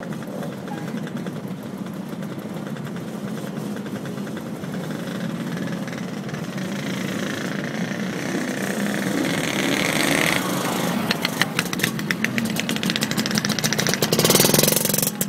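Motorcycle engines running steadily, growing louder as a motorcycle rides close past near the end, its exhaust pulses coming through plainly and loudest as it passes.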